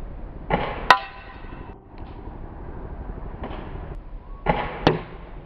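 Spring-powered airsoft shotgun fired twice at a ceramic tile and bottle target: each shot is a short pop followed by the sharp crack of the BBs hitting, the first crack ringing briefly.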